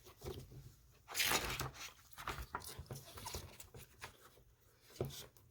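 Faint rustling and handling of a sound book's pages as they are turned, with a louder papery swish about a second in and scattered small clicks and scrapes.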